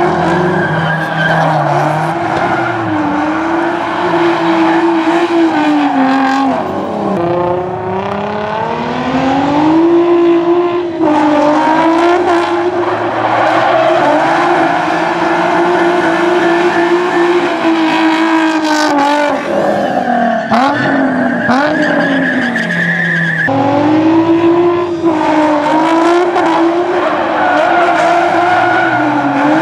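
Nissan 350Z drift car's engine revving hard and held high, with tyres screeching as it slides. The revs fall away and climb back several times as the throttle is lifted and reapplied.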